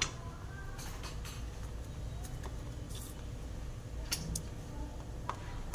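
Faint, scattered clicks and taps of a small T4 screwdriver and fingers handling a phone's metal midframe on a hard tabletop, over a steady low hum.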